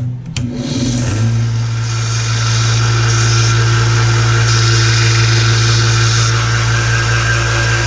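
Electric motor of a shop power tool switching on about a second in, spinning up and then running at a steady pitch with a constant hum.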